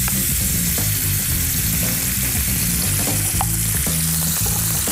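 Minced beef sizzling steadily as it fries in oil in a hot frying pan.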